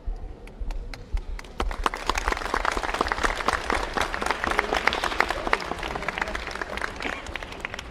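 Audience applauding. A few scattered claps build into full, dense applause about a second and a half in, which then thins out near the end.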